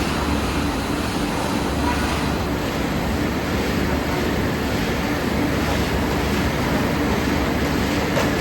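Steady machinery noise: an even rumble with a low hum that does not change.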